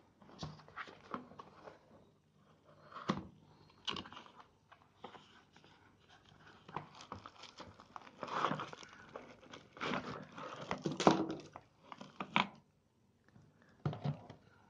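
A hair clipper's cardboard box being handled and opened, its inner tray sliding out, with irregular crinkling and rustling of the packaging. Several sharp knocks are heard, and the handling is busiest in the last few seconds.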